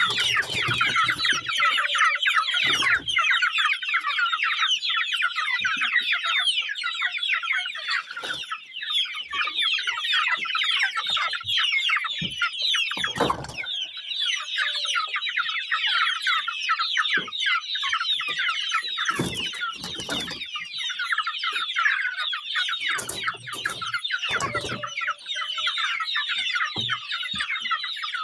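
A flock of young Sasso chickens peeping and chirping nonstop, many high calls overlapping into a continuous chorus. A few brief low thumps break in here and there.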